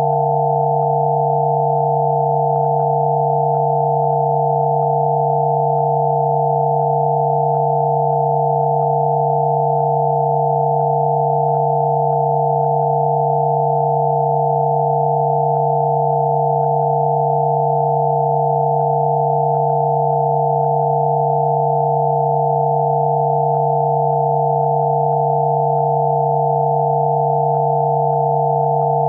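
Electronically generated Rife frequency sine tones, several steady pure tones sounding together: a low hum under a cluster of higher tones, held at a constant level without any change.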